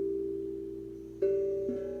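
Steel tongue drum notes ringing out and slowly fading. A new note is struck about a second in, and a lower one follows half a second later.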